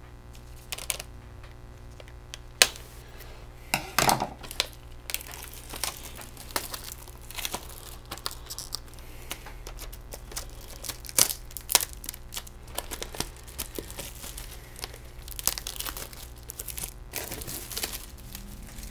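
Plastic shrink-wrap being torn open and peeled off a factory-sealed clamshell VHS case, with irregular crinkling and crackling throughout.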